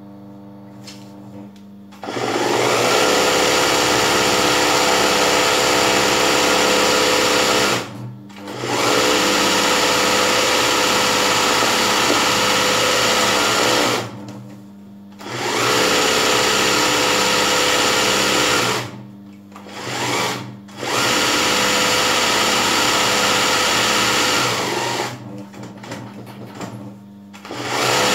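Electric sewing machine stitching satin-stitch embroidery as the fabric is guided by hand, starting about two seconds in and running in bursts of several seconds with short stops between them.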